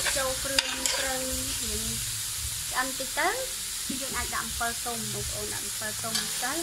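Metal ladle stirring and scraping chunks of duck meat with kroeung curry paste in an aluminium pot, over the sizzle of the meat frying, in short repeated scraping strokes.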